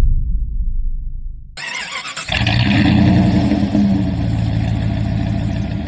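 A low rumble fading out, then, after an abrupt change about one and a half seconds in, a vehicle engine running steadily.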